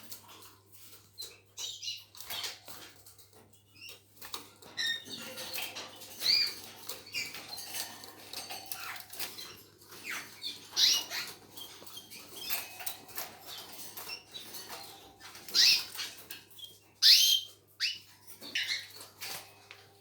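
Canaries chirping in short, separate calls, some sweeping up or down, with scattered small clicks and rustles. A faint steady low hum runs underneath.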